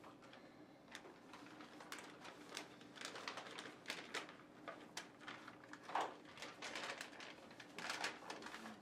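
Paper rustling and crinkling as several people open paper envelopes and handle the sheets inside: a busy, irregular run of short rustles and tears.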